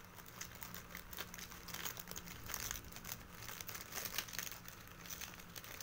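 Close-up chewing of a mouthful of fried rice: a dense, continuous run of small crisp crackles from the mouth.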